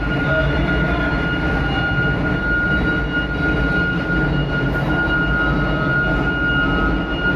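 Heavy engines running steadily, a dense low rumble with a steady high-pitched whine over it.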